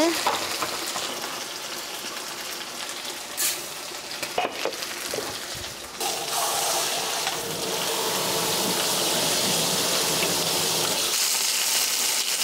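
Marinated chicken neck meat sizzling steadily in a frying pan, with a few light utensil knocks near the middle; the sizzle gets louder about halfway through.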